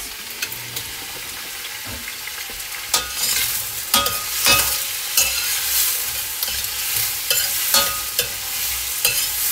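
Chopped vegetables sizzling in oil in a stainless steel sauté pan, with a metal utensil scraping and clinking against the pan as they are stirred, the strokes coming mostly after about three seconds in.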